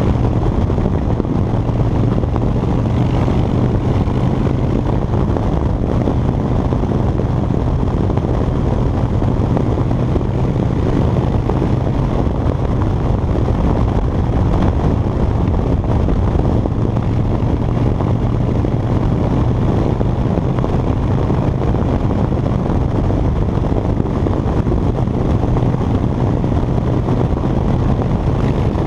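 Harley-Davidson Dyna Fat Bob's air-cooled Twin Cam V-twin running at a steady cruising speed, with wind rushing over the camera. The engine note holds one low, even pitch with no shifts or revs.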